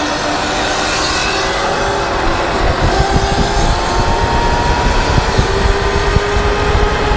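Sur Ron electric dirt bike at road speed: heavy wind buffeting on the handlebar-mounted microphone, with the electric motor's faint whine rising slowly in pitch as the bike speeds up from about three seconds in.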